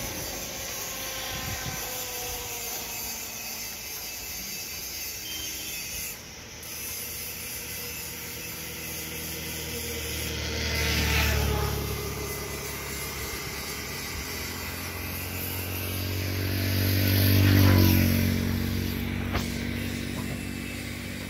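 Highway traffic: a steady low hum with two vehicles going past, one about halfway through and a louder one a few seconds before the end, each engine note dropping in pitch as it passes.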